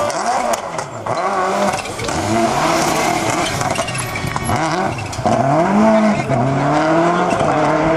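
Subaru Impreza rally car's turbocharged flat-four engine driven hard as it passes. The pitch climbs and drops back repeatedly through the gear changes, and the loudest full-throttle pulls come in the second half.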